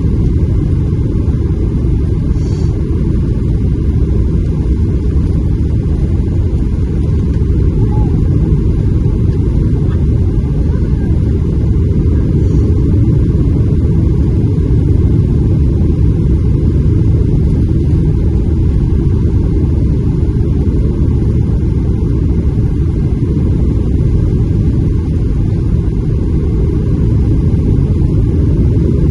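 Steady low rumble inside the cabin of a Boeing 737-700 on the ground just after touchdown: the CFM56-7B engines and the aircraft rolling on the runway, with no rise or fall in level.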